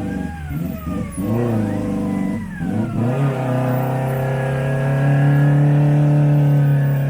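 Off-road 4x4's engine revved hard in quick blips, pitch rising and falling for about three seconds, then held at steady high revs.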